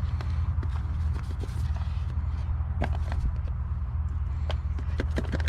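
Small objects being handled, scattered light clicks and knocks, over a steady low hum.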